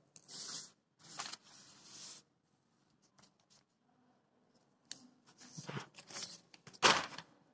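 Paper rustling and shifting under the hand, then a pen scratching and clicking on paper as a short entry is written, with a louder sharp rustle near the end.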